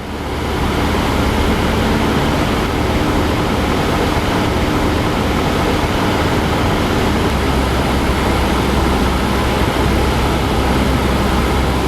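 Cessna 172 Skyhawk's engine and propeller droning steadily at constant power in level flight, heard inside the cabin.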